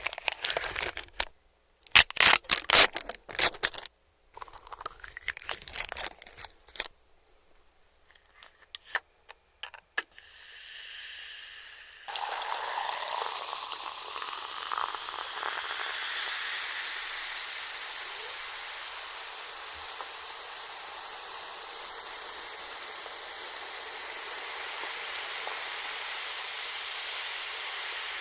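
Paper and plastic food packaging crinkling and tearing in sharp, irregular bursts, then, about twelve seconds in, a steady liquid hiss that begins abruptly and runs on evenly.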